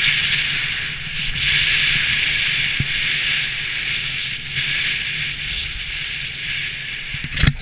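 Steady hiss of a rider sliding downhill on packed snow. Near the end, a sudden thump and clatter, the loudest moment, as the rider goes down in a wipeout.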